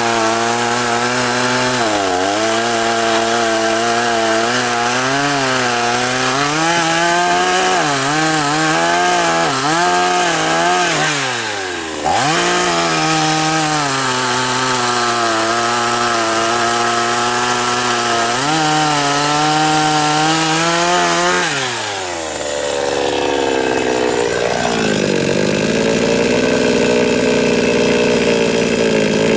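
Chinese-made 52cc two-stroke chainsaw with an 18-inch bar running hard through willow logs, the engine pitch sagging and rising as the chain bites. The engine slows sharply about eleven seconds in and again about twenty-two seconds in, then settles to steady idling near the end.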